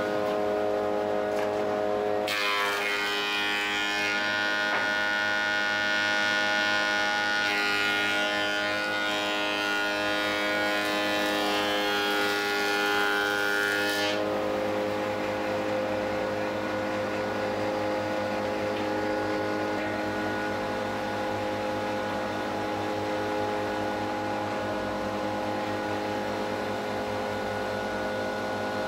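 Metabo HC 260 planer-thicknesser running steadily after a repair of its feed-roller bushings, its motor whine holding one pitch. A brighter, harsher noise rides over it from about two seconds in and stops about halfway through.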